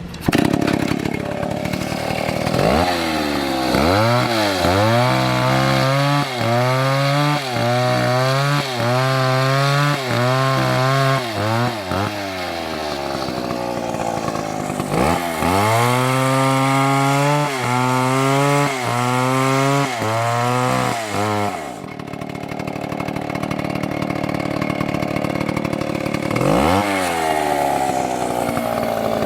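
Two-stroke chainsaw revving and cutting, its engine pitch dipping and recovering about once a second in two long runs. Between the runs it drops back to a lower, steadier speed, then revs up again near the end.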